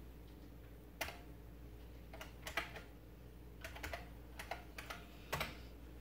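Keys pressed on a computer keyboard: about eight separate clacks at irregular intervals, a few at a time, as the running graphics program is stopped and the code editor is opened.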